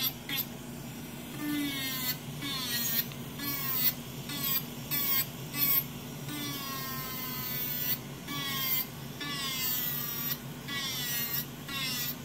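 Electric nail drill (e-file) with its bit grinding a nail in short repeated passes, the high whine dipping in pitch each time the bit bears down on the nail. A steady low hum from the Nova Flair II dust collector's fan runs underneath.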